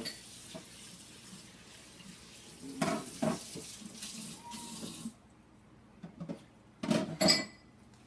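Kitchen tap running into a sink, shut off suddenly about five seconds in, with dishes clattering twice, the loudest clatter near the end.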